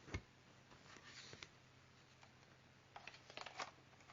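Near silence: room tone with a faint low hum, a soft thump near the start, and a few small clicks and light rustles about three seconds in, like objects or paper being handled.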